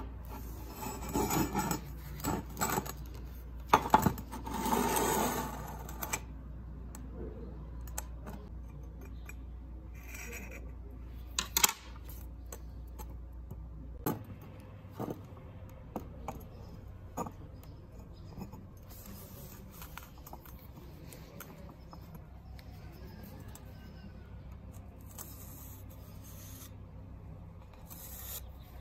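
Steel pipe and square steel tube handled with gloved hands: scraping rubs in the first several seconds, then scattered metal clinks and knocks. A low steady hum runs underneath and stops about halfway.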